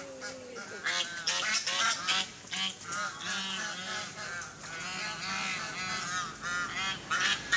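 Waterfowl honking: many short, rapid calls overlapping one another, thickening about a second in.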